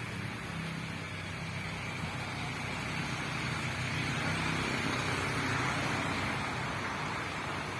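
Steady engine hum of a motor vehicle, with a rushing noise that swells about halfway through and eases near the end.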